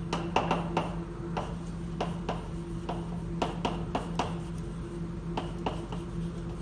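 Chalk writing on a blackboard: a run of sharp, irregular taps and short scrapes as the chalk forms letters, about two or three a second.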